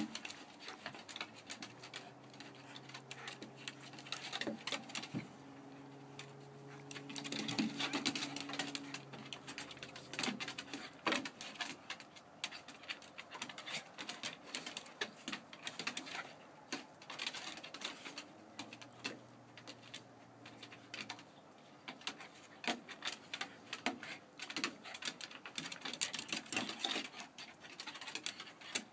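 Dogs' claws clicking and scrabbling on wooden deck boards as two dogs play-wrestle: a dense run of quick taps and scuffs. A low steady hum comes and goes underneath.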